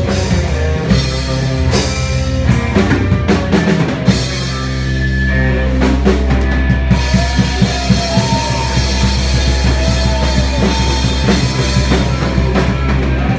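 Grunge rock band playing live in an instrumental passage with no vocals: drum kit with repeated bass drum and snare hits under sustained bass and guitars, with some bending, gliding guitar notes in the middle.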